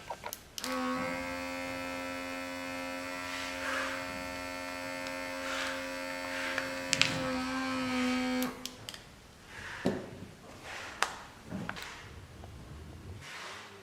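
Handheld vacuum sealer's small electric pump motor running at a steady pitch for about eight seconds, drawing the air out, then cutting off; a few light clicks and knocks follow.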